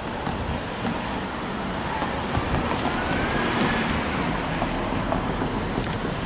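Road traffic: cars driving past over the level crossing, a steady noise of tyres and engines.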